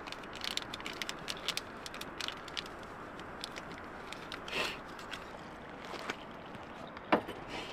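Small clicks and rustles of packets and camp cookware being handled on a tailgate, over a steady low hiss. A short scrape comes about four and a half seconds in, and a single sharp click near the end.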